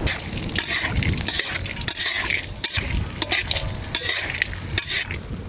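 Chopped onions and cashew nuts sizzling as they fry in hot ghee in a kadhai, stirred with a utensil that scrapes the pan in quick, irregular strokes. The stirring stops shortly before the end.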